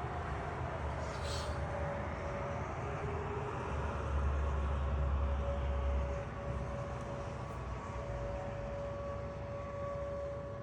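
Air-raid sirens wailing: one tone glides down in pitch near the start, then a steady tone holds through to the end. Underneath is a low rumble that swells for about two seconds in the middle.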